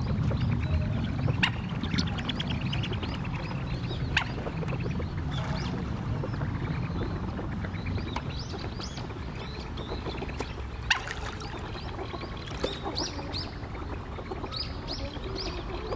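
Mandarin ducks calling on the water: scattered short, high rising whistles, more of them in the second half, over a steady low rumble. A few sharp clicks stand out, the loudest about eleven seconds in.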